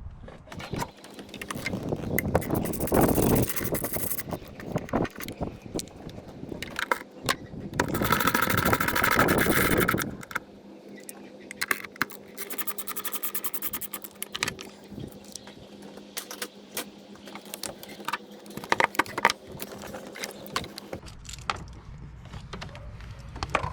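Hands and tools working on a car's plastic air cleaner housing and its fittings in the engine bay: irregular clicks, rattles and scraping, with a louder stretch of scraping about eight seconds in.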